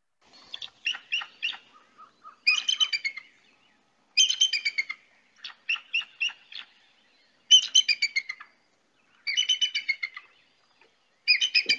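Recorded bald eagle calls: bursts of quick, high chittering notes, repeated every second or two; a wimpy-sounding call for so large a bird.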